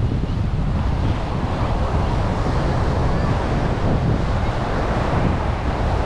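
Strong wind buffeting the microphone in a steady low rumble, with the wash of surf beneath it.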